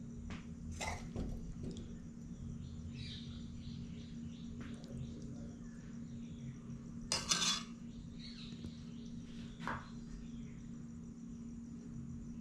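A metal spoon clinking and scraping against a glass plate while serving curry onto rice, a few sharp clinks with the loudest cluster about seven seconds in. Birds and insects chirp faintly in the background.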